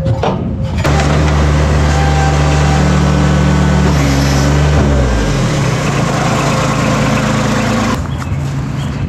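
Bobcat MT100 mini track loader's diesel engine running under throttle as the machine drives off the truck ramps and travels. Its pitch drops a little about five seconds in, and it runs somewhat quieter from about eight seconds in.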